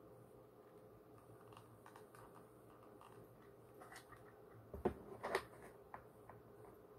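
Soft rustling and crinkling of a paper towel being folded by hand, with faint scattered clicks and two louder knocks about five seconds in.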